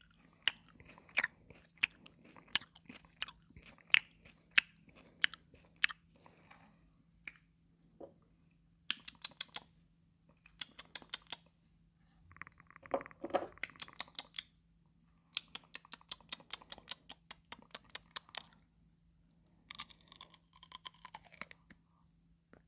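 Cucumber being chewed: crisp crunches about one and a half a second for the first six seconds, then quick runs of crackly clicks broken by short pauses.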